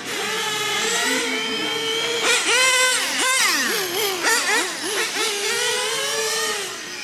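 Several 1/10-scale nitro RC car engines, small two-stroke glow-fuel engines, running at high revs. Their pitch rises and falls as the cars accelerate and lift off, and several sweep past together about two to five seconds in, where it is loudest.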